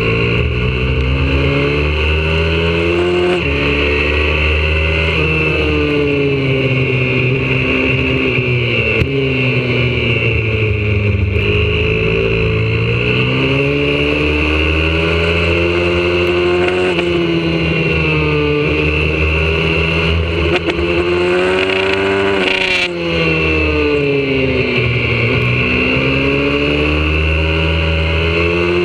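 YCF 125cc four-stroke pit bike engine heard from on the bike at speed on a track, its pitch repeatedly rising as it accelerates and falling as it backs off for the corners. About two-thirds of the way through, the pitch breaks off sharply, as at a gear change.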